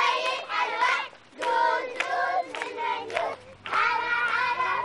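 A group of children singing a chant together in short phrases with brief pauses between them, with hand clapping.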